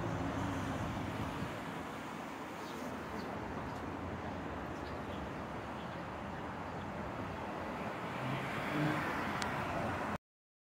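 Street traffic: a steady wash of noise from cars on a busy road, with a brief louder swell near the end. It cuts off abruptly to silence just before the end.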